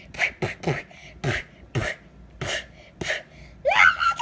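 A voice making a series of short, sharp non-word vocal outbursts, about seven, each dropping in pitch.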